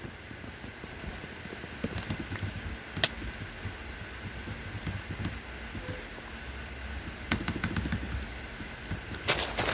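Scattered sharp clicks and knocks over a steady low rumble, with a louder cluster of knocks near the end.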